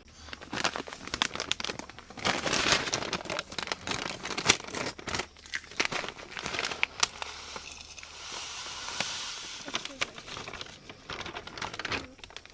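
Crinkling and crackling with many sharp clicks as grilled ribs are taken off the grill, loudest about two seconds in and again near the end.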